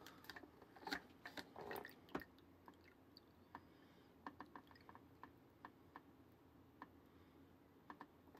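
Faint trickle of a drink running from a toy drink fountain's spout into a small plastic cup, with scattered small plastic clicks and ticks.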